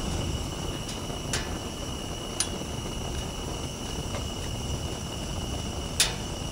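Steady low rumble and hiss in a drifting hot air balloon's basket, with a faint high whine and a few sharp clicks, the loudest near the end.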